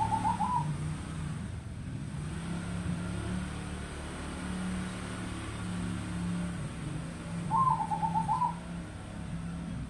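Perkutut crossing (zebra dove) cooing: two short phrases of quick rolling notes, one right at the start and one about three-quarters of the way through.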